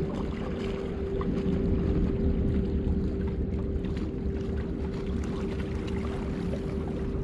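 Wind rumbling on the microphone over open harbour water, with a steady low hum underneath.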